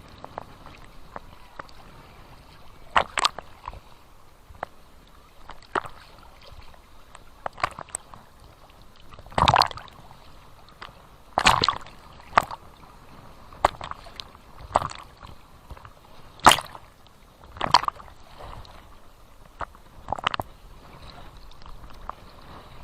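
Small Black Sea waves splashing and lapping, irregular sharp slaps of water over a low steady wash, with a few louder splashes around the middle.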